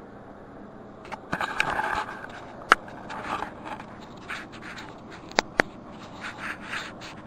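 Hard objects being handled: a stretch of scraping starts about a second in, followed by three sharp clicks and several shorter scrapes and rustles.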